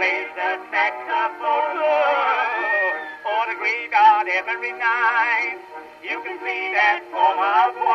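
Background music: an old-time song, a singer's voice with a wide vibrato over accompaniment. It sounds thin, with no bass.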